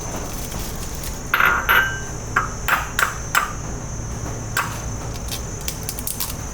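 A run of sharp clinks and knocks from kitchen utensils, a quick cluster about a second in, then single strikes every half second or so, over a faint steady high whine.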